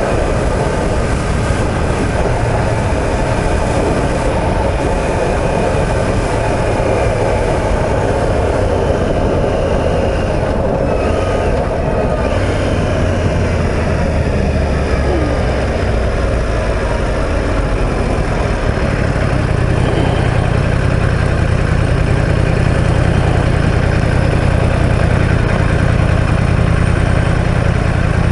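Yamaha YZF-R1M's inline-four engine running under way with wind rush, which eases about two-thirds of the way in as the bike slows, leaving a steady low engine hum.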